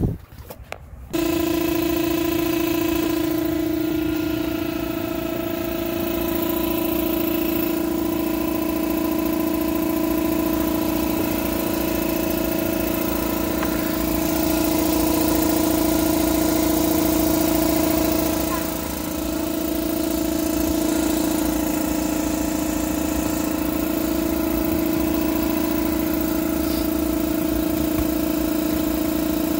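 Electric air blower switching on about a second in and running with a steady, loud hum and rushing hiss as it drives air through the sand in a hot tub shell to fluidize it. The sound dips briefly about two-thirds of the way through.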